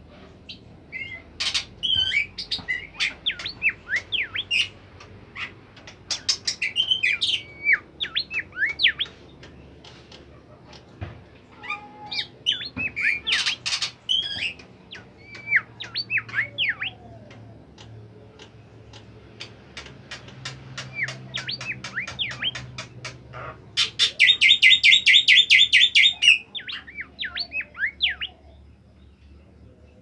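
Caged bimoli (golden whistler) singing in vigorous bursts of quick chirps and whistled notes, in three spells with short pauses between them. About two-thirds of the way through comes a fast, even trill, the loudest part of the song.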